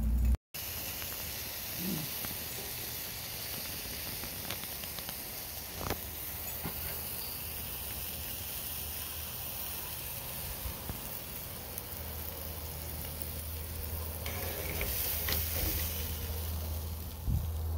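Thick porterhouse steak sizzling on the grate of a charcoal mini-grill, a steady crackling hiss. A few light metal clicks of tongs come near the end.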